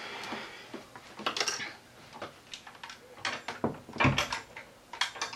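Scattered clicks, taps and rustles of craft materials being handled on a tabletop, with a soft thump about four seconds in.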